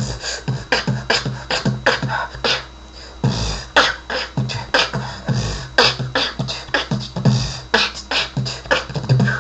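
Freestyle beatboxing: a rhythmic pattern of mouth-made low kick thumps and hissing cymbal 'ts' sounds, about three to four hits a second, with a low sliding tone that falls in pitch about three seconds in.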